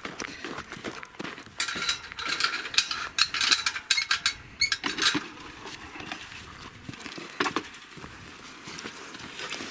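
Footsteps on dry grass, and a clattering, clinking rattle of a metal wire-mesh gate and a plastic pet carrier as they are handled, busiest about two to four seconds in, with a few single knocks after.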